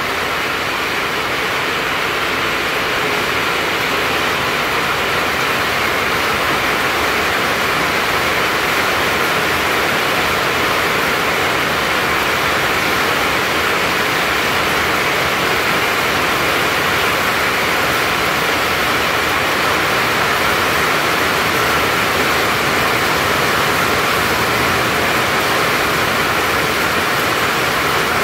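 Heavy rain falling steadily, a dense even hiss that builds a little over the first few seconds and then holds.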